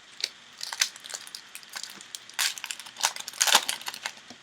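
Foil trading-card pack wrapper being torn open and crinkled by hand, an irregular string of crackles and rustles.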